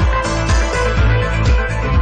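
Electronic synthesizer music with a steady beat of about two beats a second under held synth notes.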